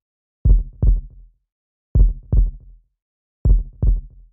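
Deep heartbeat-style sound effect: three lub-dub double thumps, repeating about every second and a half with silence between them.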